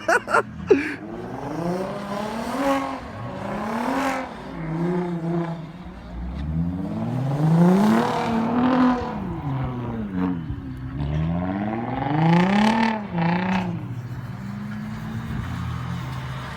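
Audi B5 S4's twin-turbo V6 revving up and dropping back again and again as the car slides around in snow, with a few sharp knocks right at the start.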